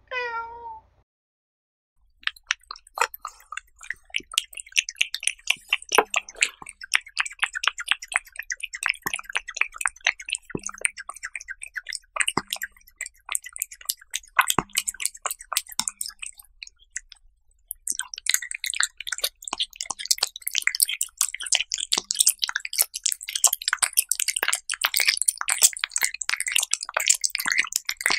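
A short falling tone, then a cat eating raw beef slices with egg yolk close to the microphone: a fast, irregular run of wet smacking, licking and chewing clicks, with a brief lull a little past halfway.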